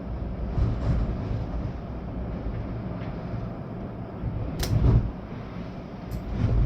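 Storm wind gusting with steady rain, the gusts buffeting the microphone in low rumbles. A few sharp knocks or rattles, loudest about five seconds in.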